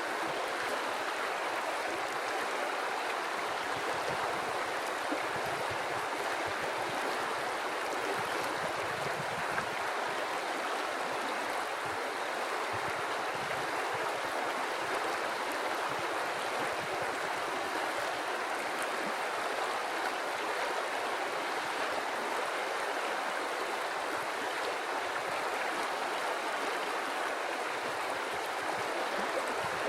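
River water flowing steadily over rocks, a continuous rushing and burbling.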